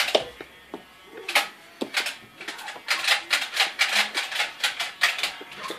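A quick, irregular run of small plastic clicks and knocks as a Nerf blaster and its foam darts are handled.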